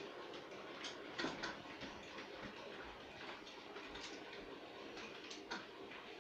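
Model railway train running on its track: a faint steady hum with irregular light clicks of the wheels over the rail joints.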